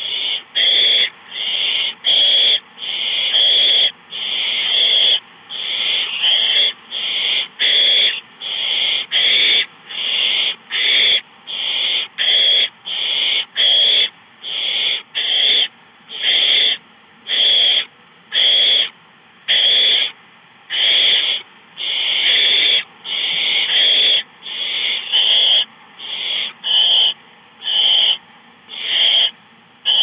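Barn owl nestlings giving their rasping, hissing begging calls (the 'snoring' of owlets asking for food), about two hisses a second, overlapping and repeating without a break.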